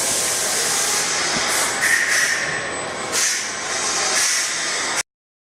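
Fryer SL8 CNC slant-bed lathe running with coolant spraying inside its enclosure: a loud, uneven hiss with a brief whine about two seconds in. It cuts off suddenly about five seconds in.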